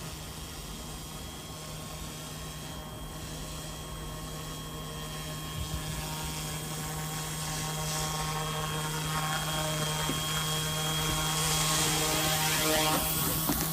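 Eachine E186 RC helicopter running under electric power: a steady hum from its spinning rotor blades with a motor whine above it, growing gradually louder toward the end.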